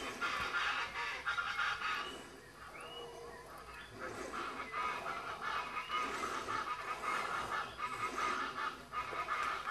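Hyacinth macaw calling: harsh, honking squawks repeated in long runs, with a few short rising notes in between.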